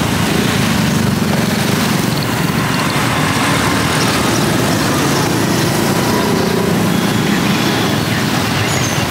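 A vehicle engine running steadily, with a constant low rumble.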